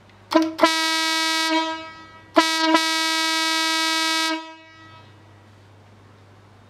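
Horn Tech 12-volt 18-inch chrome truck air horn, driven by its own small compressor, sounding two loud blasts of one steady note: a shorter one of about a second, then a longer one of about two seconds. Each blast starts with a quick double stab before it settles.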